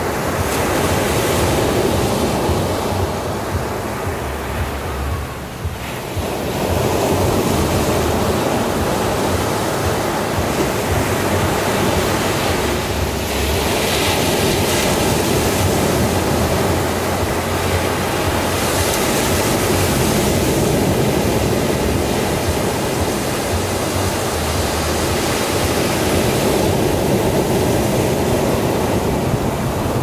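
Small waves breaking and foam washing up a sandy beach: a continuous surf roar that ebbs briefly about five seconds in and swells again as later waves wash in, with wind rumbling on the microphone underneath.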